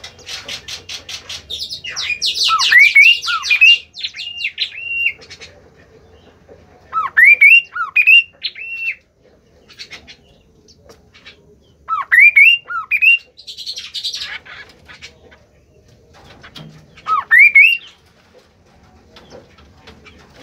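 A songbird singing in repeated phrases of short, upward-sweeping whistles mixed with fast rattling chatter, with a pause of a few seconds between phrases.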